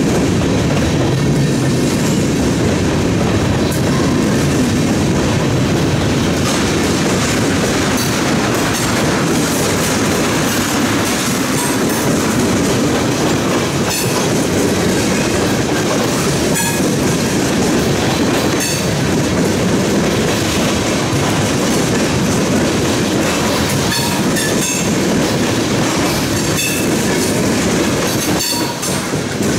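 Freight train of covered hopper cars and tank cars rolling past close by: a steady rumble of steel wheels on rail, with sharp wheel clicks every couple of seconds.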